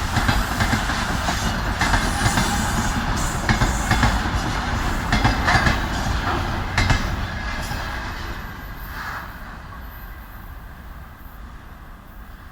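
Freight train wagons' wheels clattering over rail joints in loud, irregular knocks, then fading away over the last few seconds as the train moves off.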